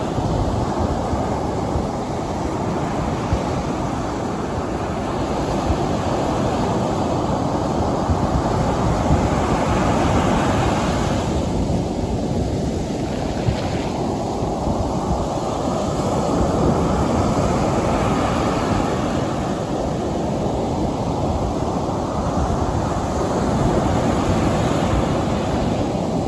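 Waves breaking and washing up a sandy beach: a continuous rushing of surf that swells and eases as each wave comes in.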